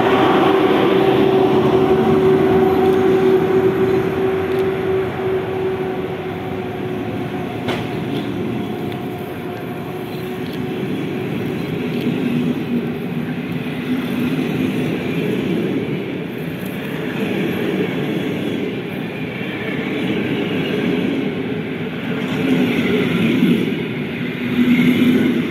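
An EP07 electric locomotive pulls a passenger train slowly out of the station. Its steady hum fades over the first several seconds as it draws away. Then the coaches roll past, their wheels rumbling and clattering on the rails, with one sharp click a little before halfway.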